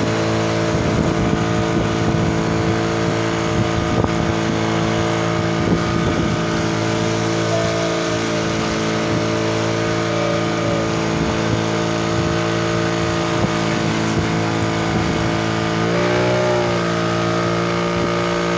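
Motorboat engine running steadily underway, with a hiss of wind and water. About sixteen seconds in the engine note dips and rises, then settles into a slightly different pitch.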